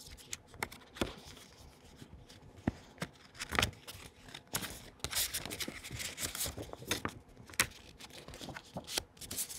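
A manila paper envelope being opened by hand and a card pulled out: irregular paper rustling with small sharp clicks, busiest around the middle.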